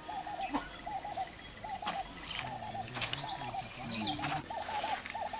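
Outdoor insect chorus: a steady high buzz, with a lower chirping call repeated in quick groups of three or four notes that come closer together near the end.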